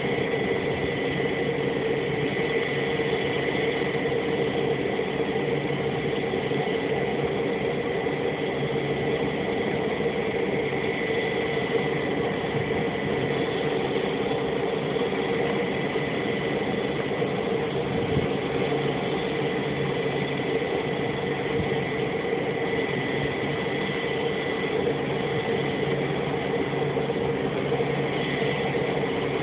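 Beechcraft T-34C Turbo Mentor's turboprop engine idling on the ground, a steady running sound with a thin high turbine whine over it.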